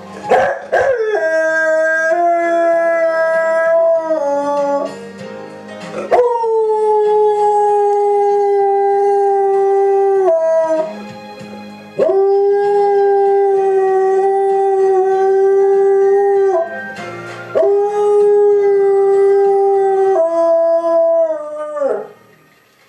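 English Springer Spaniel howling along to a television theme tune: four long howls of about four to five seconds each, each held on one note and dropping away at the end, with the music playing underneath.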